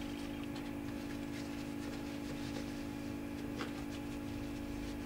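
A steady low hum, with a few faint clicks and rustles from a small piece of paper being folded and wiped against the model's tail surfaces.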